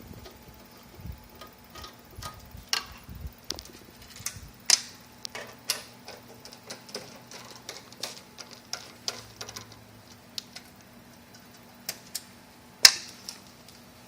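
Irregular clicks and clacks of hands handling small hardware and tools, with one sharp, louder clack near the end, over a faint steady low hum.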